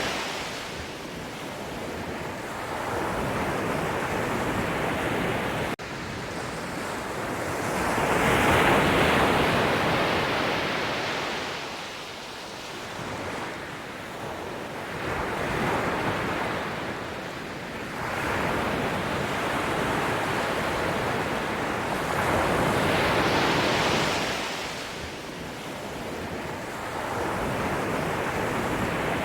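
Ocean surf: waves breaking and washing onto the shore, the rushing noise swelling and ebbing in slow surges that peak roughly every seven or eight seconds.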